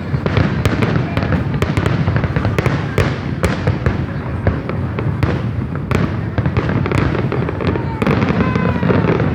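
Fireworks going off in a dense barrage: a rapid run of sharp cracks and pops over a continuous low rumble.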